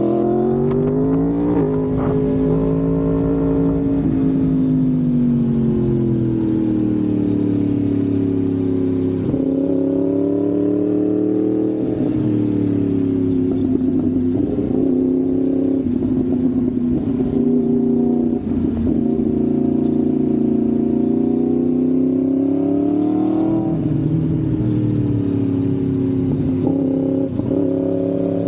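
Yamaha MT-10's crossplane inline-four engine running through an SC-Project aftermarket exhaust, its pitch rising and falling in slow sweeps of several seconds each with no break in the sound.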